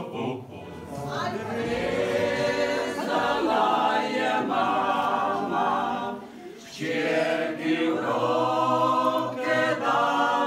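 Unaccompanied group singing, a cappella. A men's vocal ensemble sings first; after a brief break a bit past halfway, a mixed choir of older men and women sings.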